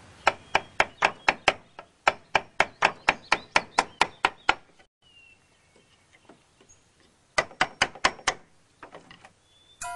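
Hammer tapping the handle of a wood chisel set against an old board, splitting the board apart: a steady run of sharp knocks, about four a second, then a pause and a quicker burst of about five knocks near the end.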